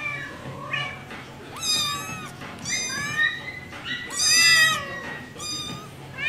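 Kitten meowing repeatedly in short, high-pitched calls about once a second, the loudest about four seconds in.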